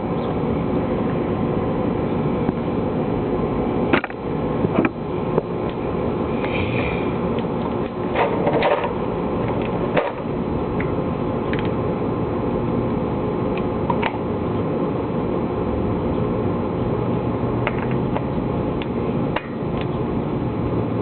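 A steady mechanical hum, like a fan or small motor running, with a few sharp clicks and knocks, and a short clatter of metal about eight seconds in.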